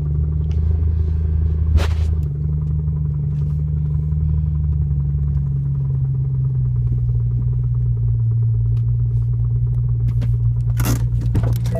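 BMW M3 E92's V8 engine running steadily, with the knocking that the owner reports coming from the engine. A sharp click about two seconds in and a louder one near the end.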